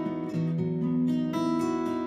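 Background music on acoustic guitar: a run of plucked notes ringing over one another.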